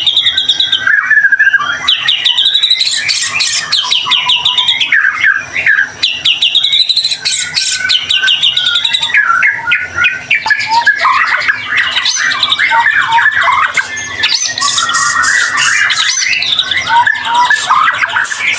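White-rumped shama (murai batu) singing vigorously without a break: a loud, fast-changing song of clear whistles, rapid trills and sharp chattering notes.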